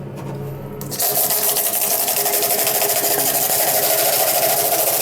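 Tap water starts running about a second in and splashes steadily onto a laptop keyboard held in a sink, as the keys are rinsed.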